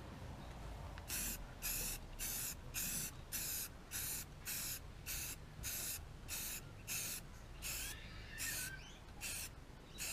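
Spray paint hissing out in a long series of short, even bursts, nearly two a second, starting about a second in, as a coat is laid onto go-kart bodywork.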